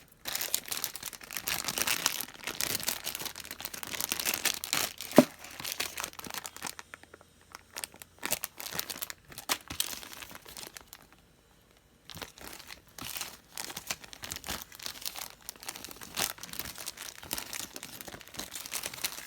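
Thin plastic packaging crinkling and rustling as it is handled and opened, with one sharp tap about five seconds in. The handling goes quiet around the middle, then resumes in scattered crinkles.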